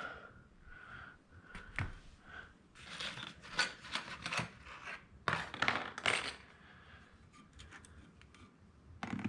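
Steel manual-transmission gear and synchronizer parts clinking and rattling against each other and the bench as they are picked up and handled, in several short bunches of metallic clicks.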